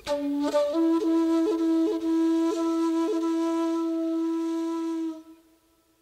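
Background music: a solo flute plays a short low note, then holds one long note decorated with quick grace-note flicks, and fades out near the end.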